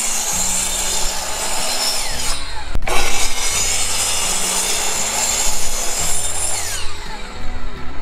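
Sliding compound miter saw cutting across a thick 2x lumber board: the blade runs through the wood, stops briefly a little over two seconds in, starts again with a loud cut, and winds down about seven seconds in.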